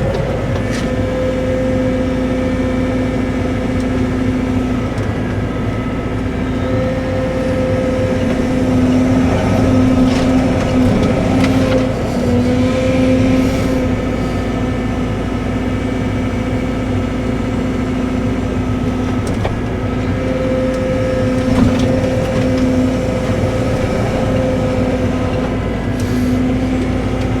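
Cat 313 excavator's diesel engine and hydraulics running steadily under work, a constant drone with a pitched hum that swells and eases in stretches as the machine works, and a few faint knocks.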